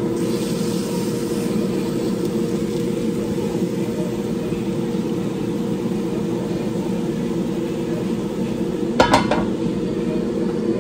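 A steady low mechanical hum from a kitchen appliance, with a brief clatter about nine seconds in.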